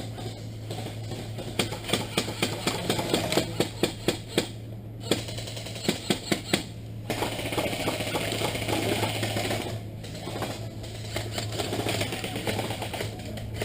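Airsoft guns firing: a run of sharp clicking shots, several a second, for about five seconds, then a steadier rustling noise.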